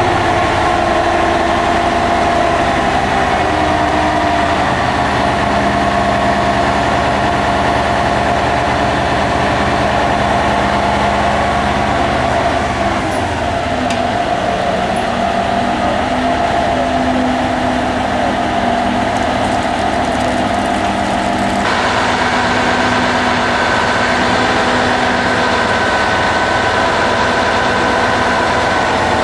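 Truck-mounted mobile crane's diesel engine running steadily while it hoists a load. Its note shifts about halfway through and again about two-thirds of the way in.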